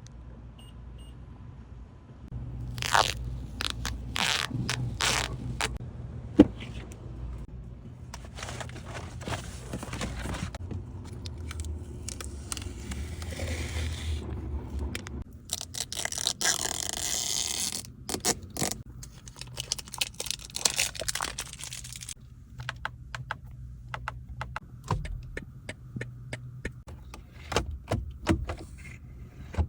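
Irregular scraping, crunching and clicking handling noises, with a low steady hum underneath.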